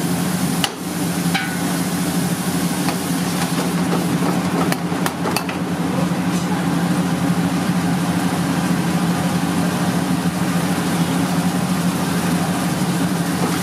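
Chicken curry simmering and sizzling in a kadai over a gas burner, under a steady low kitchen hum. A steel ladle clicks against the pan about a second in, and a few times around five seconds in.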